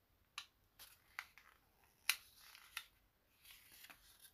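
Folded origami colour paper crinkling and crackling faintly as fingers push the flaps of a paper fortune teller into shape, with a few short sharp crackles and a soft rustle near the end.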